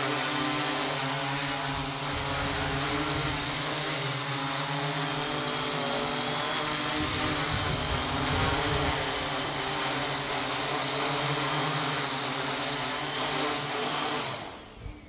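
Hexacopter's six electric motors and propellers running steadily in a low hover, a constant hum with a high whine over it. The motors wind down and stop about 14 seconds in as it sets down.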